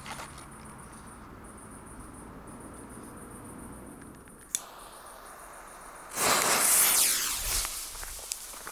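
Crickets chirping faintly in a pulsing high trill, then a sharp click about four and a half seconds in. About six seconds in comes a loud fizzing hiss that fades over about two seconds: the lit fuse of a Toffee L01T banger burning down before it goes off.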